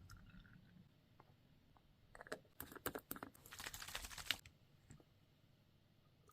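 Hands handling plastic toy packaging: a quick run of small sharp clicks and taps about two seconds in, then about a second of crinkling rustle.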